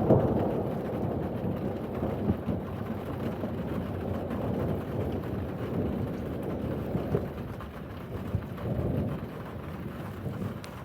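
Thunder rumbling, loudest at the start and slowly dying away over several seconds, with rain falling throughout.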